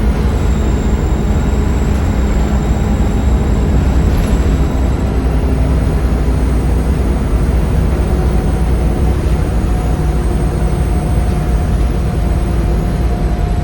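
Volvo B7RLE bus's 7.3-litre Volvo D7C diesel engine running steadily under way, with a high, thin turbo whistle over the low rumble.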